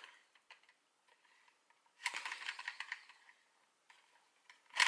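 Small hard plastic toy key clicking and rattling as it is handled and flipped in the hand while being spun: scattered light clicks, a cluster of quick clicks about two seconds in, and a sharper click near the end.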